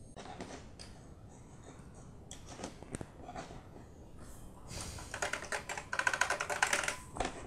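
Keystrokes on the Macintosh 512K's keyboard as a filename is typed. A few scattered clicks come first, then a quick run of typing from about the middle to near the end.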